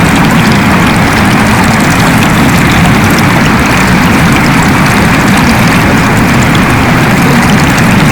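Waterfall pouring: a loud, steady rush of falling water with a deep rumble underneath.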